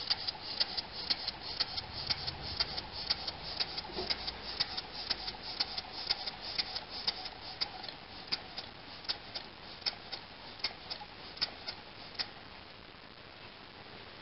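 Model over-crank pumping steam engine running on compressed air at 5 PSI, its mechanism clicking rapidly and evenly. In the second half the clicks space out as the engine slows, and it comes to a stop near the end.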